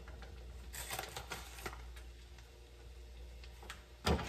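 Plastic bag of shredded cheese crinkling in the hand as cheese is sprinkled into a frying pan, with a cluster of light crackles about a second in and a single sharp knock near the end, over a low steady hum.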